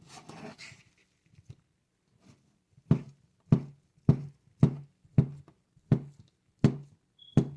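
Knife chopping crab meat into pieces, striking the cutting board in about eight even strokes roughly every half second, starting about three seconds in after a brief rustle.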